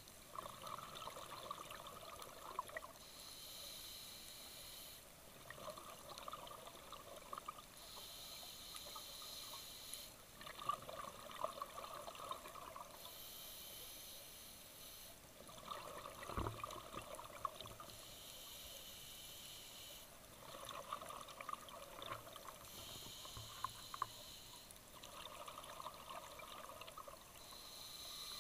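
A scuba diver breathing through a regulator: a hissing inhale alternating with a gurgling rush of exhaled bubbles, about six slow breaths.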